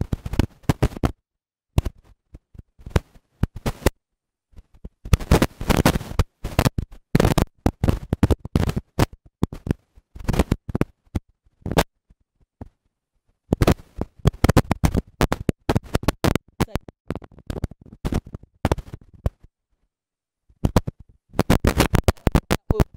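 Crackling, cutting-out audio: a woman's speech through a faulty microphone line comes through only as bursts of harsh, scratchy crackle, a second or two at a time, broken by gaps of dead silence.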